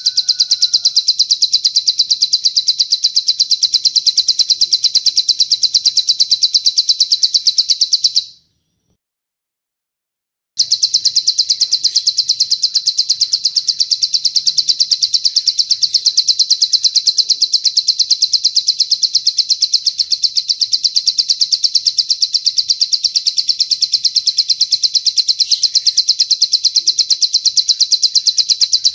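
Bird song in the 'cililin' style: a long, very rapid, high-pitched trill of even chirps. It is the tutor song (masteran) played to plain prinias for them to copy. It stops for about two seconds about a third of the way in, then carries on unchanged.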